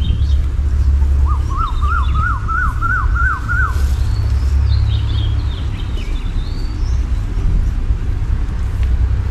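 Steady low wind rumble on the microphone, with birds chirping high up. About a second in, a quick series of about eight short rising whoops, like a distant siren, runs for about two and a half seconds.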